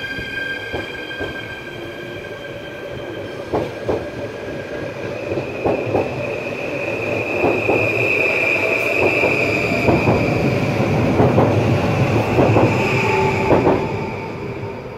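NS Sprinter electric multiple unit pulling out and accelerating: its traction motors give a high whine that builds, and the wheels clack over rail joints and points in quickening knocks. It is loudest about thirteen seconds in, then fades as the train draws away.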